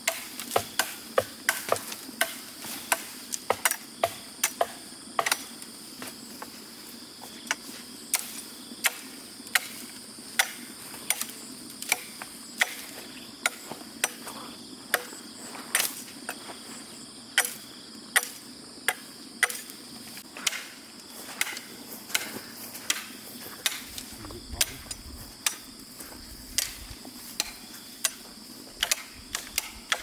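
Blade chopping bamboo: sharp, irregular knocking strokes, about two a second.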